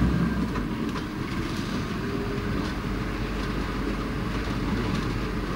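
Safari vehicle's engine running steadily as it drives along a dirt track, heard from on board: a steady low rumble with a few light knocks.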